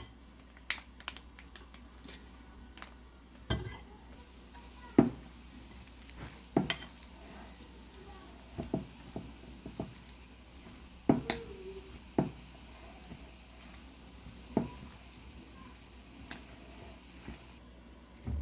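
A metal spoon stirring mayonnaise into a grated-cheese and corn salad in a glass bowl, knocking and clinking against the glass at irregular moments, about a dozen times.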